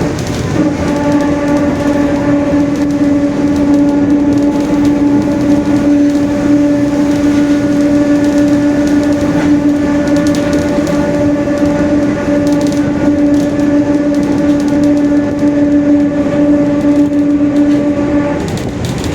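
Mercedes-Benz OF-1721 bus running at a steady speed, its differential giving off a steady whine at one unchanging pitch over the engine and road noise. The whine sets in about half a second in and drops away shortly before the end.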